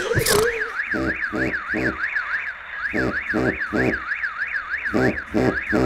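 Mobile flip phone's alarm ringing: a fast electronic warble rising and falling about four times a second, with a steady high tone over it and groups of three short lower pulses repeating about every two seconds. A single sharp click sounds just after it begins.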